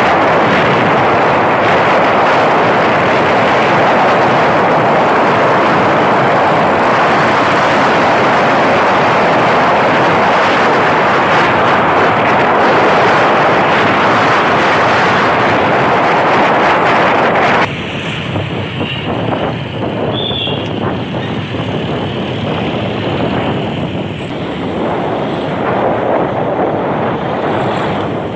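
Wind rushing over the microphone of a moving vehicle, a loud steady rush with road and vehicle noise beneath it. About two-thirds of the way through it drops abruptly to a quieter, more uneven rush.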